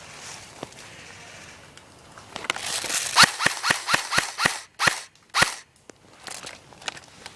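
Airsoft guns firing a quick string of sharp pops, about four a second, for about three seconds starting a couple of seconds in.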